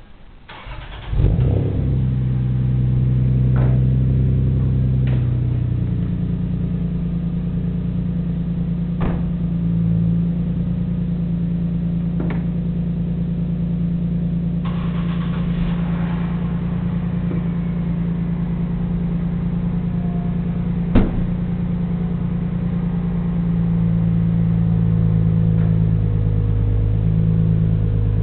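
2002 Lexus IS300's 3.0 L inline-six, breathing through an aftermarket intake, racepipe and catback exhaust, cranks and catches about a second in, runs at a raised cold-start idle and settles within a few seconds into a steady idle. A sharp click sounds about three-quarters of the way through, and the idle note shifts near the end.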